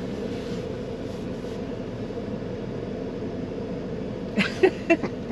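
Steady engine and road noise inside the cab of a Ford pickup truck on the move. A few brief clicks come near the end.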